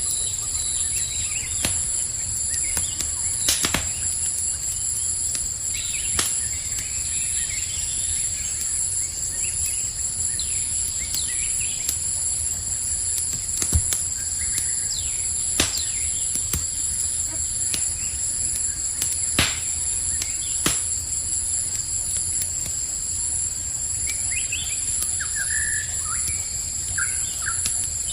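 Campfire crackling with scattered sharp pops, over a steady high chorus of crickets. A few short bird chirps come near the end.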